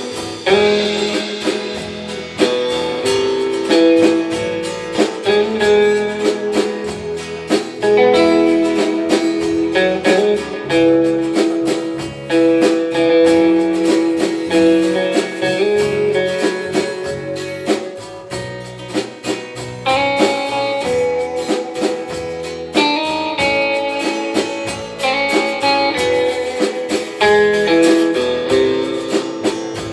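A rautalanka band playing live: electric guitars carrying an instrumental melody over bass guitar and a drum kit keeping a steady beat.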